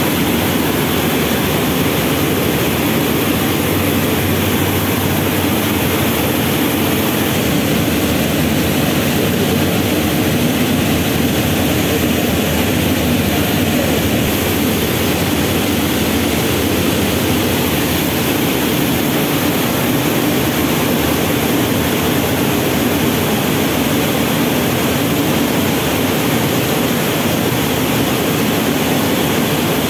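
Rice mill machinery running: a loud, steady, unbroken drone of the mill's motors and machines.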